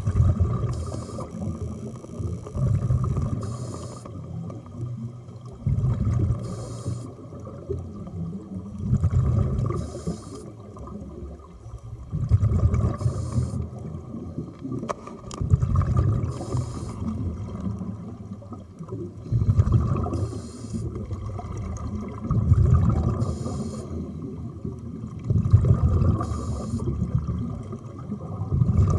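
Scuba diver breathing underwater through a regulator: a short hiss of inhalation through the demand valve, then a low rumble of exhaled bubbles, in a steady cycle about every three seconds.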